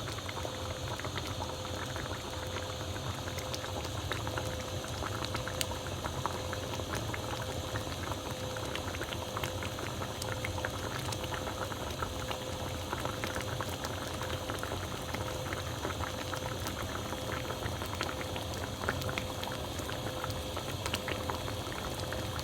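Hamburg steak cooking in a hot pan: a steady sizzling and bubbling, crackling with many small pops throughout.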